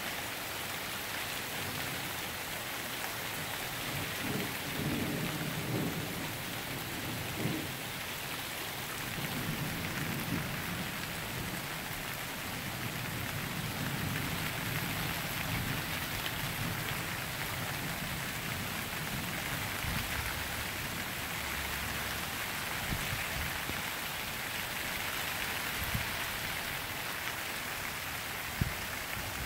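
Steady rain falling on pavement and lawns during a thunderstorm, with thunder rumbling low for several seconds from about four seconds in. A few short sharp taps stand out later on.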